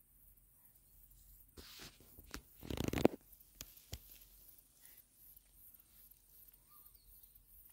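A short burst of rustling, handling noise about three seconds in, the loudest sound, with a softer rustle before it and a couple of light clicks after. It comes as an angler handles and lifts his float-fishing rod.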